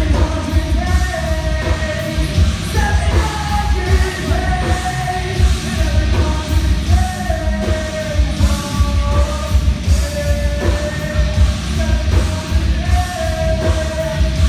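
A live rock band playing loudly: a singer's long held and sliding notes over heavy drums and bass.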